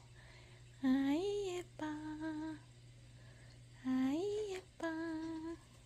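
Domestic cat meowing in two pairs: in each pair a call rises and falls, then a second call is held at a steady pitch.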